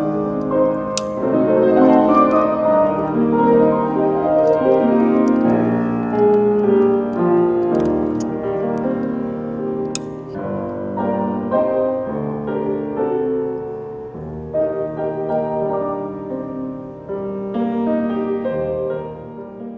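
Piano playing an instrumental piece, notes held and overlapping.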